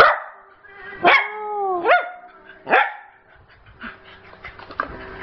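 Jack Russell terrier barking four times in sharp, loud bursts, one call bending down in pitch and sweeping back up. A run of small light clicks follows in the second half.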